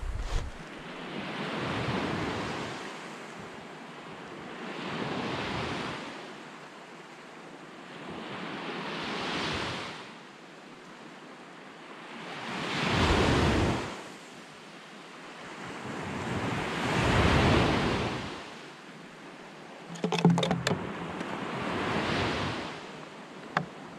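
Waves washing onto a pebble beach, the surge rising and falling about every four seconds, with wind on the microphone. A few sharp clicks and crackles near the end.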